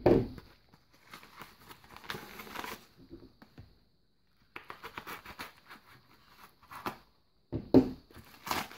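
Plastic lure packaging rustling and crinkling as it is handled and opened by hand, in irregular bursts of crackles and clicks with a short pause about halfway through.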